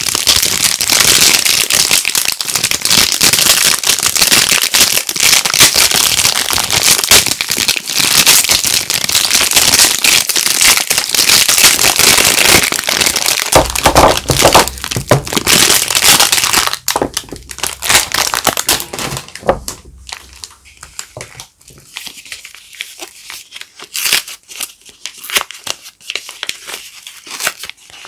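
Soap wrappers crinkling as bars of soap are unpacked by hand: dense, continuous crinkling for about the first seventeen seconds, then quieter, scattered crackles.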